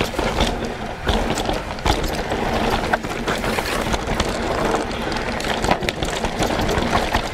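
Mountain bike riding down a dirt forest trail: a steady rush of tyre and wind noise with frequent small knocks and rattles as the knobbly tyres and bike go over bumps.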